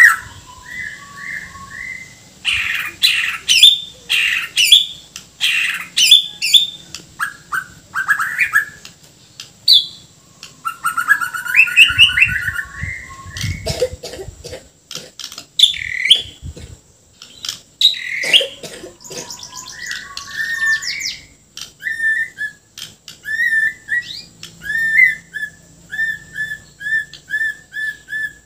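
Caged white-rumped shama (murai Borneo) singing without a break. The song runs through varied whistled phrases mixed with harsh, rasping notes ('kasaran') and mimicked calls ('isian'). It ends in a long run of short repeated chirps, about three a second.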